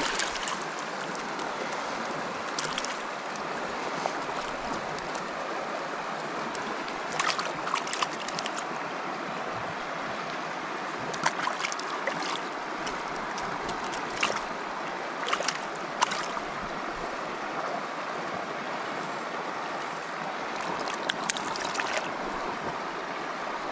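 Shallow, rocky river running steadily, with scattered short splashes and knocks close by as a freshly caught brook trout is handled in a landing net and let go into the water.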